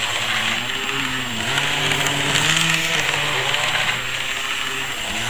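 Small electric motor of a model tram running, a steady buzzing hum over hiss, its pitch dipping and rising as the speed changes.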